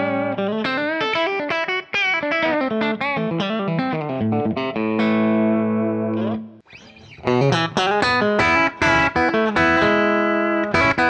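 Electric guitar played through a Kemper Profiler on a profile of a small Fender Princeton amp, picking a melodic run of single notes and chords. It breaks off briefly a little past halfway, with a short gliding note, then picks back up busier.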